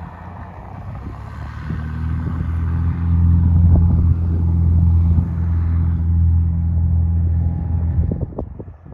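Light aircraft's piston engine and propeller running steadily. It grows louder over the first few seconds, holds, then stops abruptly about eight seconds in.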